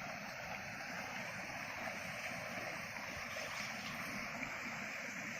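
Steady rushing of falling water from a waterfall, an even noise with no break.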